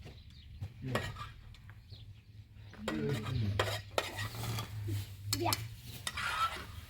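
Utensils clinking and scraping against dishes in scattered knocks, with a steady low hum starting about three seconds in.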